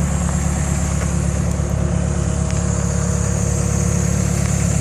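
Caterpillar E110B excavator's Mitsubishi diesel engine idling steadily.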